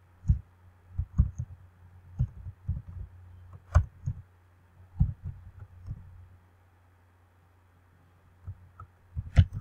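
Computer keyboard keys pressed a few at a time, dull knocks with an occasional sharper click, over a steady low hum; a pause of about two seconds, then a quick run of keystrokes near the end.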